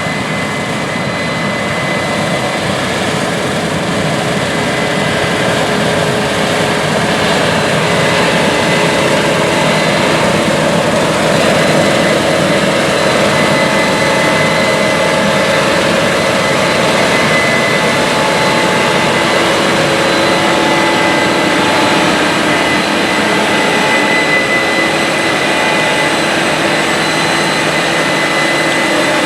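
Case IH 9250 Axial-Flow combine, with its six-cylinder FPT C16 diesel, running steadily under load while harvesting wheat: a dense mechanical din with a steady high whine, growing a little louder over the first few seconds.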